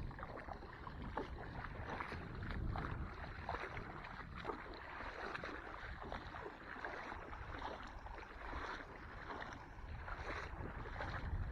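Water sloshing and splashing in short irregular crackles, over a low rumble of wind on the microphone.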